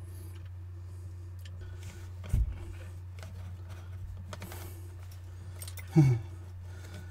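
A steady low hum throughout, with a single dull thud about two and a half seconds in and a short sound dropping in pitch about six seconds in.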